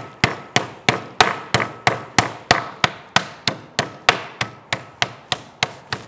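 Metal meat mallet pounding chicken breasts flat inside a plastic zip-top bag on a wooden cutting board: a steady run of sharp thuds, about three strikes a second.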